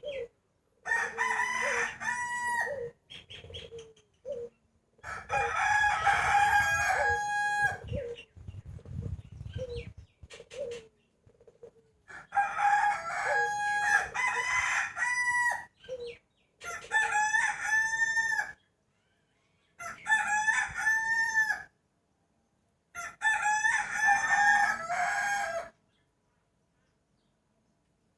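Roosters crowing, a series of about six long cock-a-doodle-doo calls, with short low clucks between the crows.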